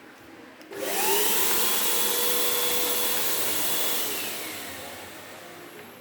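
Artificial snow machine's blower motor switching on just under a second in, whining up to speed with a loud rush of air, running steadily, then winding down and fading near the end.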